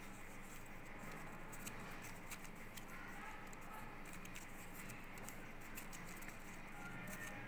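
Light, scattered clicks, taps and rustles of fingers handling a sealed plastic Kinder Joy egg.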